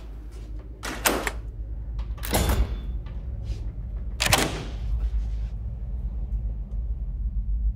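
Three heavy thuds on a door, about a second, two and a half and four and a half seconds in, over a low steady rumble.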